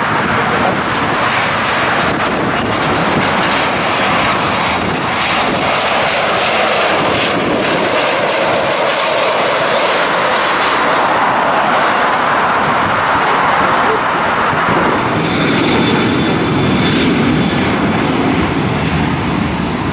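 Boeing 737-700 jetliner's engines running steadily on low approach, a loud even jet noise. About 15 seconds in it changes to a lower, deeper rumble as the jet is on the runway.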